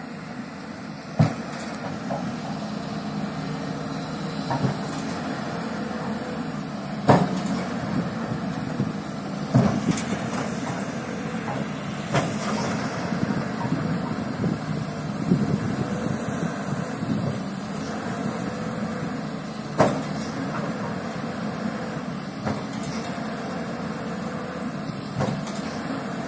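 Heavy diesel engines of a working Caterpillar excavator and a log truck running steadily. Sharp knocks now and then, about five in all, the loudest a little past a third of the way in.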